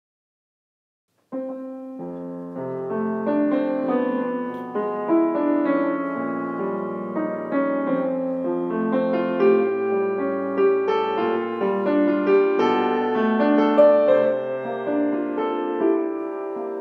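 Solo piano improvisation on a Bösendorfer piano, beginning about a second in: chords and melody over held low bass notes.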